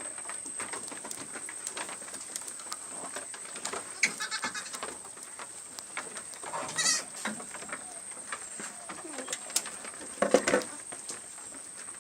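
Goats bleating, with a wavering call about four seconds in, a higher one near seven seconds and a short one near ten seconds, over faint rustling and clicks.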